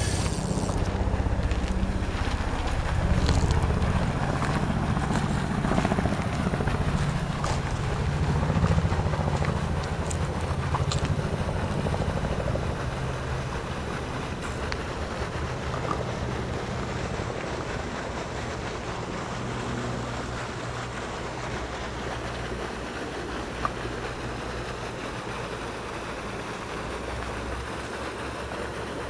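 Wind buffeting the microphone: a steady low rumble, stronger for the first twelve seconds or so and then easing off.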